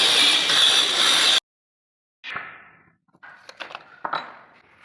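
Metal sliding-door hardware clinking and knocking: a sharp knock with a short ring, then several lighter clicks and taps as the fitting is handled. It is preceded by a loud, steady rush of noise that cuts off abruptly.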